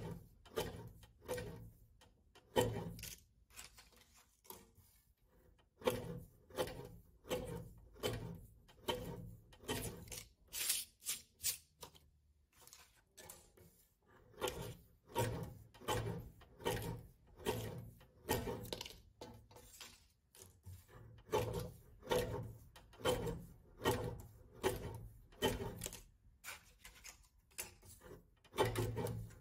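A steady run of light knocks and rubbing, roughly one or two a second with a few short pauses: objects handled and set down on a table.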